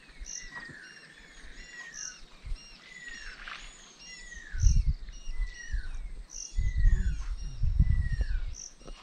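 A bird repeats a short, downward-sliding whistle every second or so, with fainter high chirps from other birds. Low rumbles come about halfway through and again near the end.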